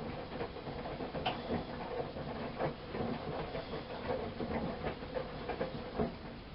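Miele Softtronic W 204 front-loading washing machine washing: the drum turning and tumbling the laundry through the water, a steady churn with an irregular run of soft knocks and splashes.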